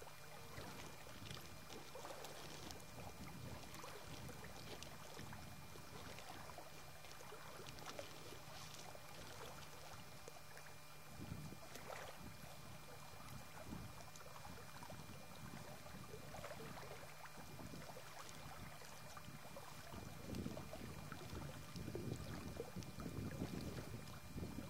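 Faint outdoor ambience of wind and a low steady hum, with soft scattered rustles and taps from handling a plastic bag and writing close by.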